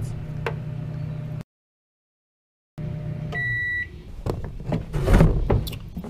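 Emerson microwave oven running with a steady low hum, broken by a dropout of about a second. About three and a half seconds in, it gives a single half-second beep at the end of its cycle and the hum stops, followed by scattered knocks and handling noises.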